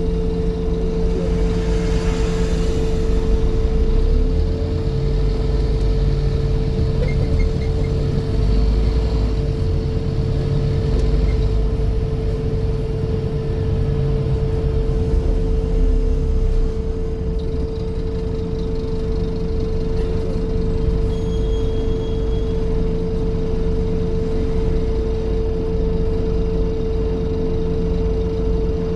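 Scania N230 bus with a steady, unchanging buzz of one pitch going on throughout, over the low running of its engine, which rises and eases a little at times.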